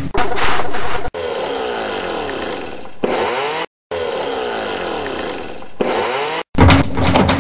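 A series of short household appliance sounds joined by abrupt cuts. The longest pieces, in the middle, are a steady electric-motor whir whose tone sweeps up and down.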